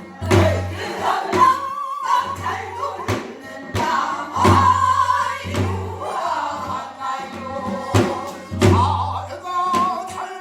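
Korean Namdo folk singing: a voice with a wide, wavering vibrato over low drum strokes that fall every second or two.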